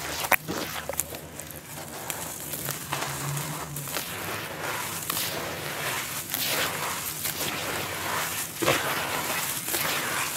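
Hands squeezing and crumbling wet, gritty red dirt in shallow muddy water, a continuous irregular crunching and squishing. There is a sharp crunch just after the start.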